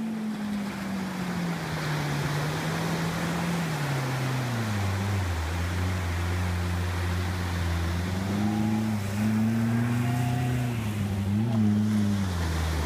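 Gibbs Quadski amphibious quad's engine running over the wash of water and waves. Its pitch drops about four seconds in, holds low, then rises again in the last few seconds.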